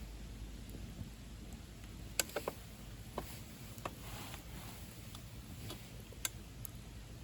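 Wood fire crackling in a DCM Fire Boost Konro secondary-combustion stove: scattered sharp pops and snaps, a quick cluster of them about two seconds in and single ones later, over a low steady background.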